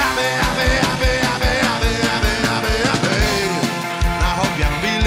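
A rock band's song from a 1995 cassette compilation, playing at full level with a steady, fast kick-drum beat under guitars and other instruments.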